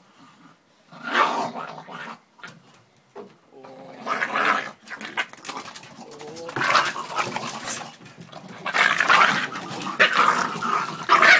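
A blue Staffordshire bull terrier and a fox terrier fighting, snarling and growling in bursts that come closer together and grow louder toward the end.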